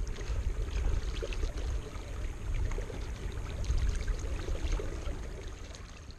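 Small water sounds lapping and trickling against a kayak hull, under a steady low rumble of wind on the microphone. It fades out near the end.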